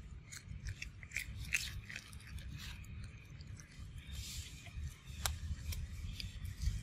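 A macaque chewing and biting small fruits: a run of crisp, irregular crunching clicks, densest in the first few seconds, over a steady low rumble.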